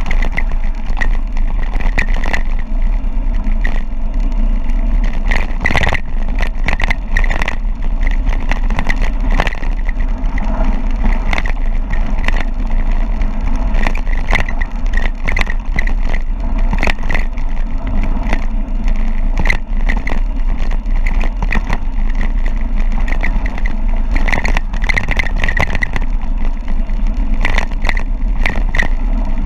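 Wind buffeting the microphone of a camera on a mountain bike at speed, a constant heavy rumble, with frequent sharp knocks and clatter as the bike runs down a rough, rocky descent.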